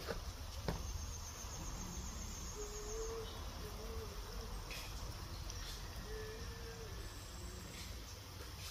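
Quiet outdoor ambience: a steady low rumble, an insect chirping in a quick high run for a couple of seconds about a second in, and a bird's short low call twice.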